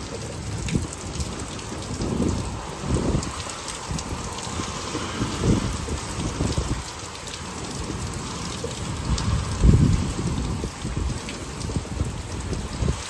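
Heavy rain pouring steadily in a storm, with strong wind gusts surging in low rumbles every second or two, the strongest about ten seconds in.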